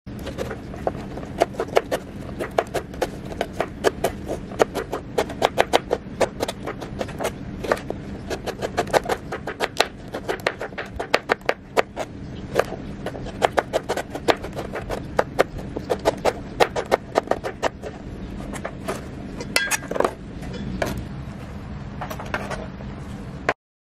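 Kitchen knife chopping kaffir limes on a plastic cutting board: a quick, uneven run of sharp knocks, several a second, that cuts off suddenly near the end.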